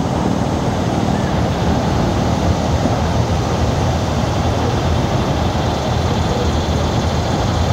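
Excursion train rolling across a bridge: a steady rumble of wheels and cars on the rails.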